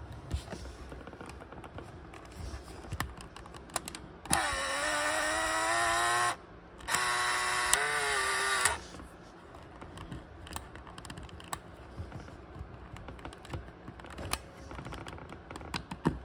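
Canon Sure Shot's built-in film-transport motor whirring in two runs of about two seconds each with a short pause between, the pitch rising as the first run starts. Small clicks of the camera being handled come before and after.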